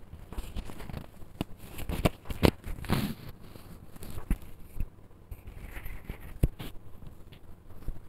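Metal spatula stirring a thick chicken and potato curry in a kadai: irregular scrapes and clicks of metal on the pan as the pieces are turned over.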